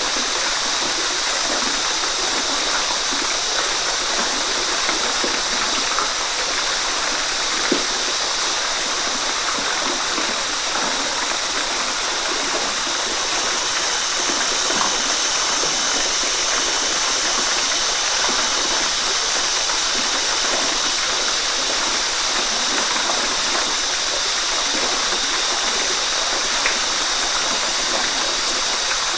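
Waterfall: a steady, unbroken rush of falling water, with two brief ticks among it.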